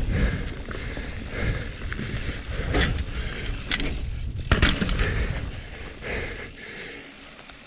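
Mountain bike rolling fast down a dirt trail, heard from a bike- or body-mounted action camera: wind rumble on the microphone and tyre noise, with a few sharp clacks and rattles from the bike over bumps. It quietens near the end as the bike rolls out onto a smoother gravel road.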